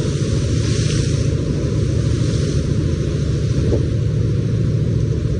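Steady low rumble of a boat under way in rough seas, with the hiss of wind, wash and breaking spray; the spray hiss swells briefly about a second in.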